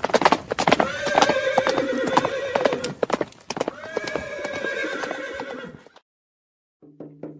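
Hooves of a group of horses clip-clopping at a walk, with two long, drawn-out calls ringing out over them. The sound cuts off about six seconds in, and drum-led music starts near the end.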